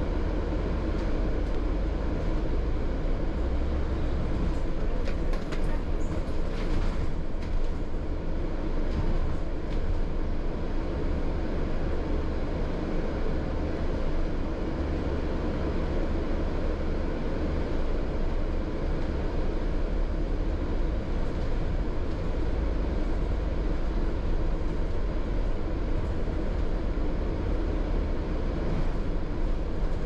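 Double-decker bus running, heard from the upper deck: a steady low rumble of engine and road noise, with a few light rattles about five to eight seconds in.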